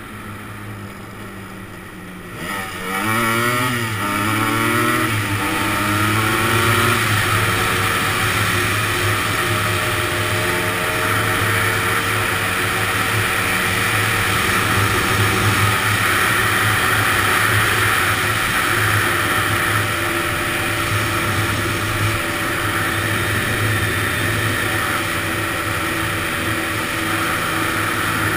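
Honda ATC250R three-wheeler's two-stroke single-cylinder engine pulling away. About two seconds in it revs up and climbs through several gear changes, its pitch rising and dropping, then runs steadily at speed.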